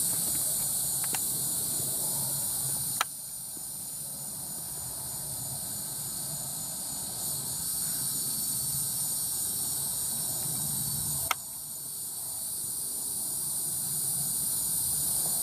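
Steady, high-pitched chorus of insects on a summer evening, with two sharp clicks, one about three seconds in and one about eleven seconds in.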